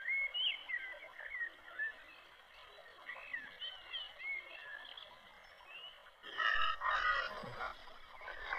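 Faint, high chirping calls of small wild animals, short and scattered, with a louder patch of calls about six seconds in.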